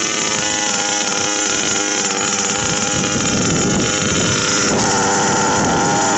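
Two-stroke engine of a gas-powered large-scale RC buggy running steadily with the car standing, getting a little louder in the second half.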